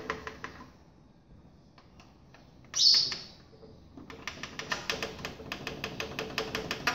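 Rapid, even clicking, several clicks a second, from a Sharp CMS-R260CD mini stereo as its FM tuner is scanned up the band; the unit plays no audio through its speakers, a sign of burnt-out speaker outputs. A single short high-pitched chirp sounds about three seconds in.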